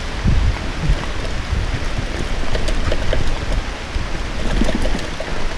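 Heavy rain falling on and around a mountain bike rolling down a wet trail, a steady hiss of rain with uneven low thumps from the ride.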